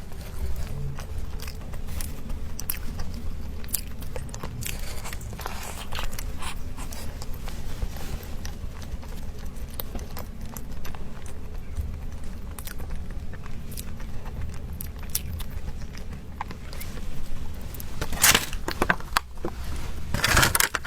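Close-miked eating of pastry: steady chewing with many small mouth and crumb clicks, and two louder rustling bursts near the end.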